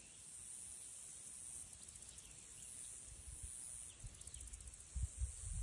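Faint summer meadow ambience: a steady high hiss of insects with a few faint bird chirps, over low wind rumble on the microphone that turns into louder buffeting near the end.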